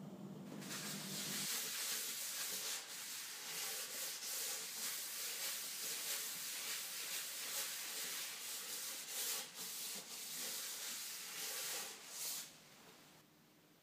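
Cloth rubbing back and forth over an oiled wooden chopping board, buffing off the excess oil: a hissing swish of repeated strokes that starts about half a second in and stops shortly before the end.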